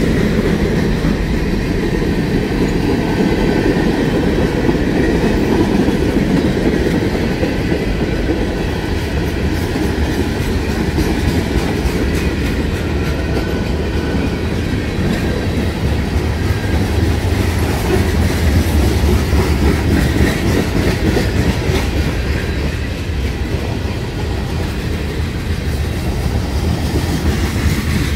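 Freight train's boxcars rolling past at close range: a steady low rumble with the clatter of steel wheels over the rails.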